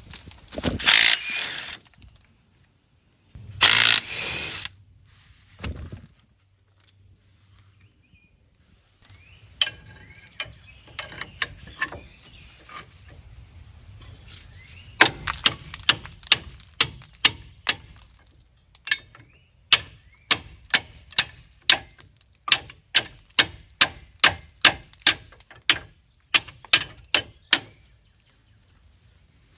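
Two one-second bursts of aerosol brake parts cleaner sprayed onto the brake assembly, then after some light clatter a hand ratchet clicking steadily at about two clicks a second as the brake caliper's bolts are turned out.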